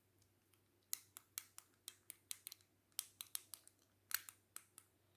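Buttons on a black plastic fidget cube being pressed one after another: about fifteen short, sharp clicks at an uneven pace, starting about a second in.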